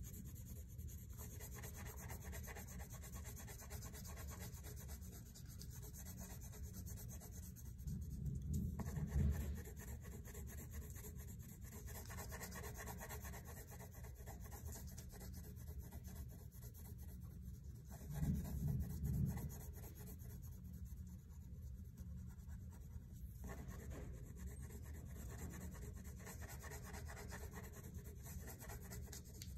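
Wax crayon rubbed back and forth on paper in steady coloring strokes, a quiet continuous scratching. Two soft low thumps stand out, about a third and about two-thirds of the way in.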